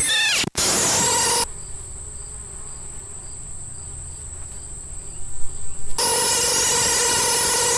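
Harsh, noisy electronic soundtrack drone with gliding tones, dropping out for an instant about half a second in. It cuts abruptly to a steady high insect buzz with faint pulses about every half second, broken by a few loud jolts near the end of that stretch. The noisy drone then returns.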